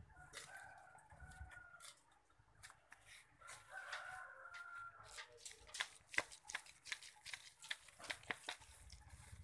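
A rooster crowing twice, the second crow about three and a half seconds in. From about halfway on, a run of dry crackles and rustles as an aglaonema's root ball is worked loose and potting mix falls into a sack.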